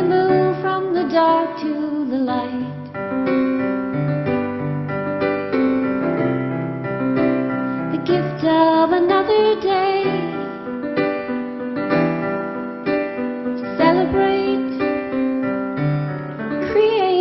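Casio Privia digital piano playing a slow song with sustained chords, with a woman singing a few phrases over it: near the start, in the middle and again near the end.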